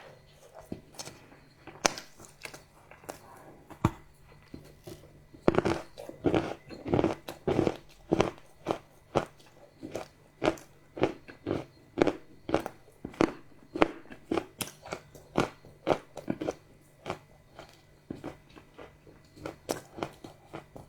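Close-miked crunching and chewing of crunchy chocolate: a few sharp bites in the first seconds, then steady crunchy chewing about two chews a second that thins out toward the end.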